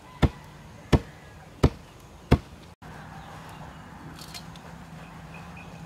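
Long wooden pestle pounding rice in a wooden mortar: four heavy thuds about 0.7 seconds apart. Then, about halfway through, it turns much quieter, with a faint soft patter of rice grains poured from a metal plate into the mortar.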